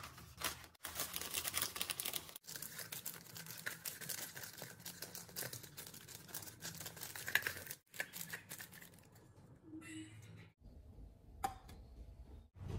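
Baking paper crinkling and rustling as it is folded and pressed into round metal cake tins. The rustle is loudest for the first eight seconds or so, drops out briefly a few times, and is quieter after that, with a sharp click near the end.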